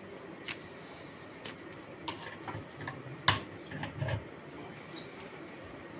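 Scattered light clicks and handling noise of an old phone charger's cable and plug being handled and plugged into a socket, with the sharpest click about three seconds in.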